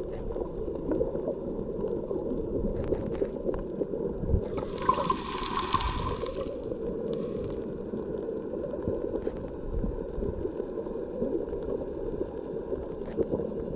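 Muffled underwater water noise picked up by a submerged camera: a steady low rumble, with a brief hissing rush about four and a half seconds in that lasts around two seconds.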